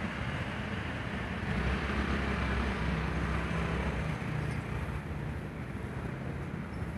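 Low, steady rumble of road traffic, swelling a little from about a second and a half to four seconds in.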